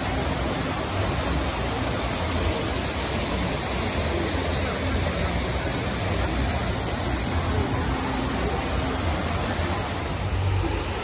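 Artificial rock waterfall: a steady rush of water cascading down terraced rocks into a pool.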